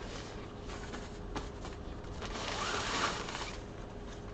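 Fabric carry bag rustling as a folded camping director chair is slid out of it, with a couple of light clicks and a louder rustle about three seconds in.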